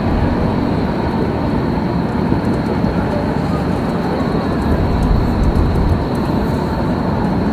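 Busy city-square ambience: a steady low rumble of traffic with voices of people nearby.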